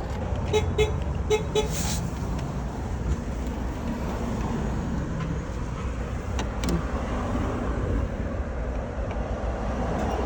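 Steady low vehicle rumble, with four short electronic beeps between about half a second and two seconds in and a few light clicks.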